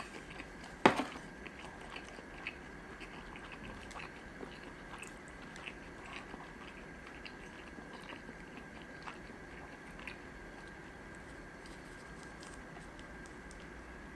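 Close-miked chewing of sushi: many small mouth clicks that thin out after about ten seconds, with one sharp knock about a second in.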